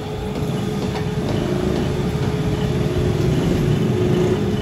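Workshop machine running steadily, spinning an engine crankshaft mounted between its centres, with a constant hum over a low rumble.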